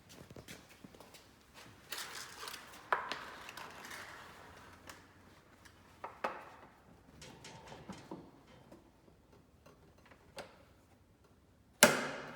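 Scattered clicks, knocks and rustling of things being handled, with a sharp, loud knock near the end that rings briefly; no motor is running.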